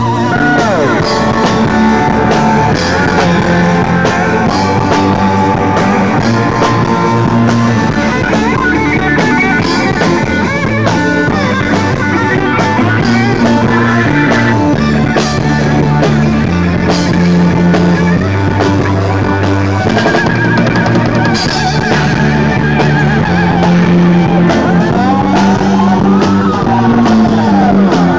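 A blues band playing: guitar lines with bent notes over bass and drum kit.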